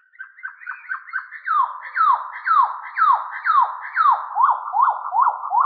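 Electronic, theremin-like synthesizer tone sweeping in pitch over and over as an intro sound effect: quick short chirps at first, then repeated falling swoops about twice a second, and rising swoops near the end.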